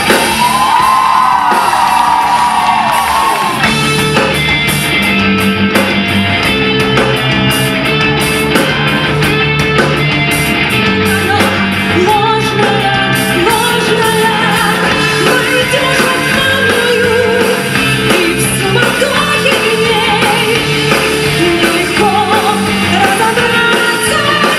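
Live band playing a rock arrangement of the song's instrumental break between choruses. It opens with a long wavering held note for about the first three seconds.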